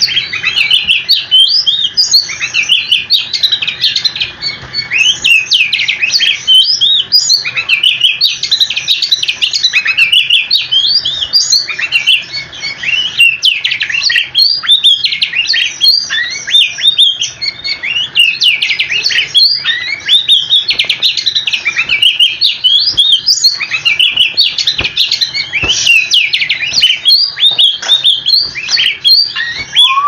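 Oriental magpie-robin (kacer) singing loudly and without a break: a fast, varied stream of high whistles, chirps and trills.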